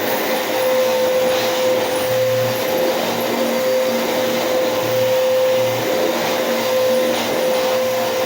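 Bissell PowerForce Bagless 6583 upright vacuum cleaner running steadily, its motor giving a constant whine over the rush of air.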